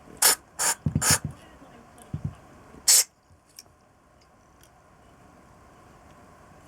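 Four short hissing spray bursts while a carburettor is cleaned, the last near three seconds in the loudest, with a few light knocks between them.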